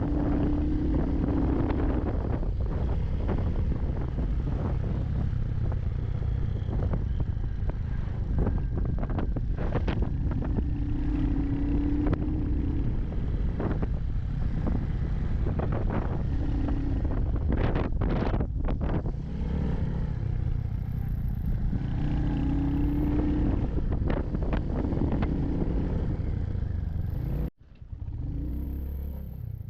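Royal Enfield Hunter 350's single-cylinder engine running under way, with frequent knocks and rattles from riding a rough road. The sound drops out abruptly near the end and comes back changed.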